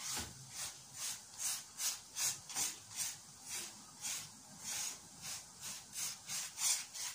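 A brush swept back and forth over a whole-meal chapati in a hot pan, spreading oil: an even rhythmic rubbing of bristles on the bread, about two or three strokes a second.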